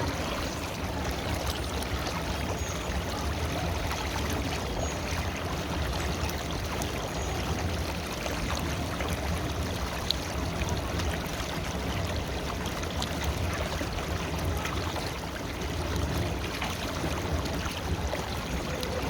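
River water flowing steadily over stones, an even rushing babble, with one brief click about ten seconds in.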